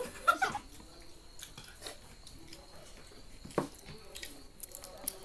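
Eating sounds at a table: chewing, with scattered light clicks and knocks of plates and plastic cups.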